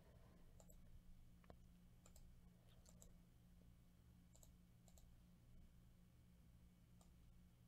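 Near silence: a handful of faint, sharp clicks scattered over a steady low electrical hum.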